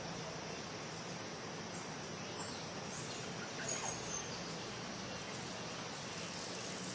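Outdoor nature ambience: a steady background hiss with a few short, high bird chirps, the clearest just under four seconds in.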